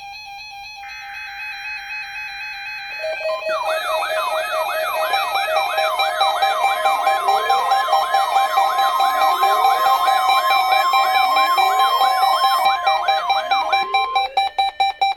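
Several NOAA weather radios sounding their alert alarms together for the weekly test: layered electronic beeps and steady tones, joined about three seconds in by a warbling siren that sweeps up and down about twice a second. The alarms end in a few quick pulses and cut off suddenly.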